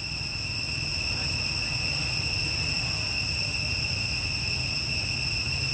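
Steady chorus of forest insects, a continuous high-pitched drone that never breaks, over a low rumble.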